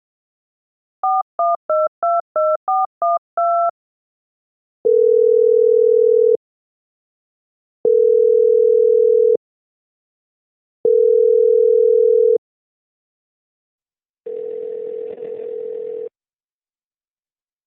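Touch-tone telephone keypad dialing a number: about nine quick two-note beeps. Then the line answers with three long steady tones, each about a second and a half with equal pauses, the call-progress tone of an outgoing call. Near the end comes a fainter, hissier tone.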